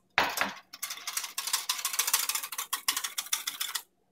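Wire whisk beating egg white, butter and sugar in a glass bowl: a rapid clicking clatter of the wires against the glass as the mixture is whipped to a froth. It opens with a short knock and cuts out briefly near the end.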